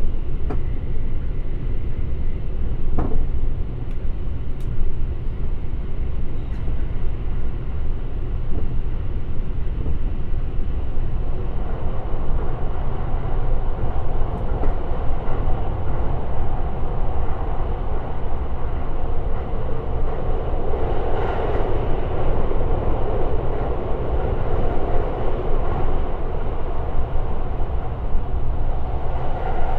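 Limited Express Shirasagi electric train running at speed: a steady low rumble of wheels on rail. The rail noise swells from about twelve seconds in and is loudest around twenty-one seconds, with a few light clicks near the start.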